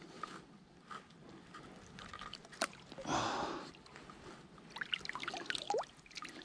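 River water splashing and dripping close by, with one louder splash about three seconds in and a run of small drips and clicks near the end.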